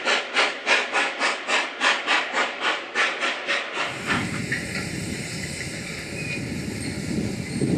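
Steam locomotive exhaust chuffing in a quick, even rhythm of about four to five beats a second as a small tank engine hauls hopper wagons. About four seconds in it cuts to a quieter, steady rumble with hiss from a more distant train.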